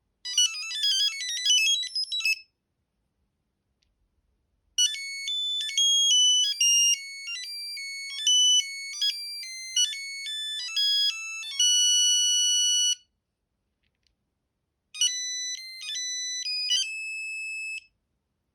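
Sony Ericsson T68i mobile phone playing its built-in ringtones: three short electronic beeping melodies in turn, separated by brief silences. The first is a quick run of notes, the second is longer and ends on a long held note, and the third is short and also ends on a held note.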